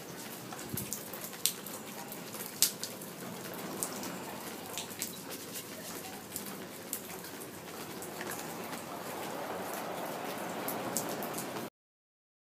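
Steady rain falling, with sharp ticks of single drops striking nearby surfaces scattered throughout. The sound cuts off abruptly near the end.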